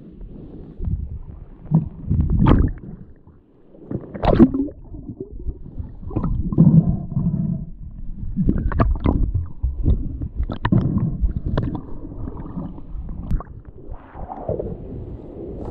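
Muffled underwater gurgling, swishing and rumbling of water moving around a submerged camera, broken by irregular knocks, as the crab pot is hauled up; the camera breaks the surface near the end.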